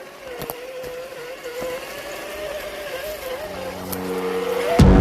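Whine of an RC crawler's Hobbywing Xerun AXE540L brushless motor, its pitch wavering up and down with the throttle, with a few sharp clicks. Loud music comes in near the end.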